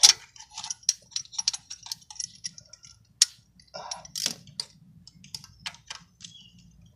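Irregular light metal clicks and clinks of a ratchet and hand tools on a Dodge 4.7 V8's cylinder head during rocker-arm installation. A sharper click comes right at the start and another about three seconds in.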